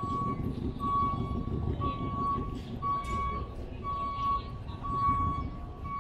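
Vehicle backup alarm beeping steadily, one beep of a single pitch about once a second, over a low outdoor rumble and crowd chatter.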